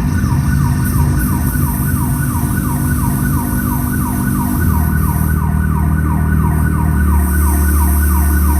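Show soundtrack over loudspeakers: a siren-like synthesised sound falling in pitch over and over, about three times a second, over deep sustained bass notes.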